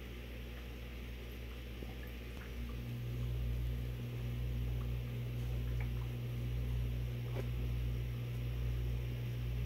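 Steady low electric hum of an aquarium pump, getting louder about three seconds in, with a few faint clicks.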